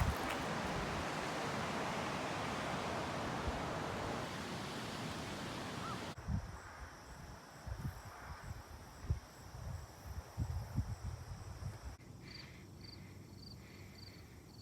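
Outdoor ambience in three short takes: first a steady rushing noise, then a quieter stretch with scattered low thumps, and from about two-thirds of the way in a repeated short high chirp, roughly two a second.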